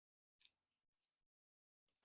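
Near silence, broken only by one faint, brief tick about half a second in.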